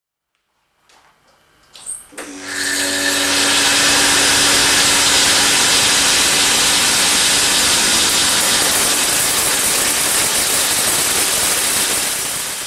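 Vibratory feeder of an RSE-50 X-ray ore separator starting up about two seconds in and then running steadily, with a dense, even rattle of small ore lumps shaking down its four chutes.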